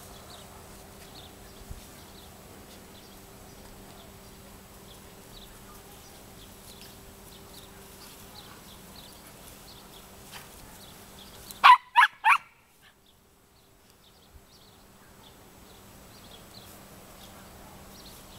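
Border terrier giving three sharp barks in quick succession, about twelve seconds in, over a faint steady background hum.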